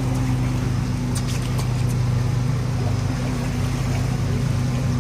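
A boat's engine running steadily at one even pitch, with a few faint ticks about a second in.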